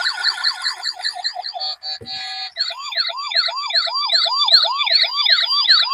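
Toy police car's electronic siren sound from its built-in speaker: a fast warbling wail, a click about two seconds in, then a slower rising-and-falling wail of about three sweeps a second.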